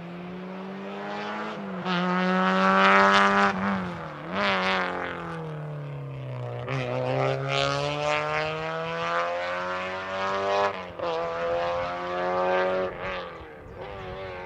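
A rally car's engine approaching and passing at speed. The revs climb, break off and climb again several times, then the sound fades away near the end.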